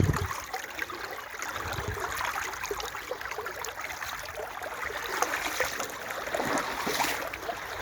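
Shallow brook flowing, a steady trickling and babbling of water over stones.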